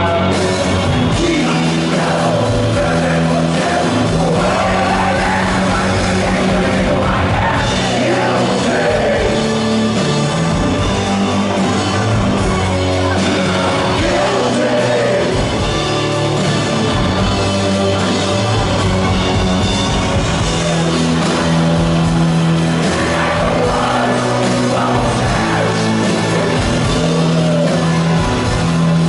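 Live rock band playing: a male singer sings over electric bass, guitar, keyboards and drums at a steady loud level, heard through the room from among the audience.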